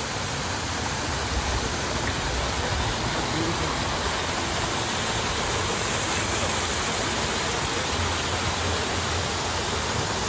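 Small waterfall splashing steadily down rocks into a pool: an even, continuous rush of falling water.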